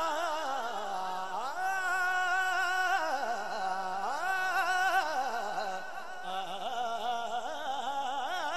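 A young man singing a Punjabi naat into a handheld microphone. He draws out long held notes with rippling, ornamented turns of pitch and no clear words.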